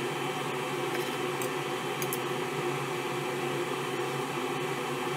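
Steady mechanical hum from a kitchen appliance or fan. A few faint clicks come about one and a half to two seconds in, from a knife slicing roast pork on a plastic cutting board.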